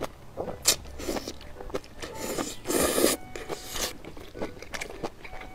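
Close-up eating sounds of a mouthful of mala-sauce mixed noodles being slurped in and chewed, with wet, noisy mouth sounds. There are two short slurps in the first second or so, then a longer, louder stretch from about two to four seconds in.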